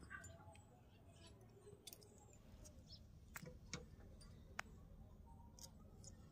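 Near silence with a few faint, scattered clicks of a small knife cutting small tomatoes held in the hand, the cut pieces dropping into a steel plate.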